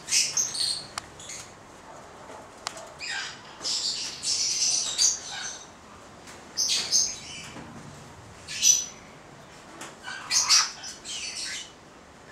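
Yellow-thighed white-bellied caiques (Pionites leucogaster xanthomeria) calling in short, high-pitched chirps and squawks. The calls come in clusters with pauses of a second or two between them.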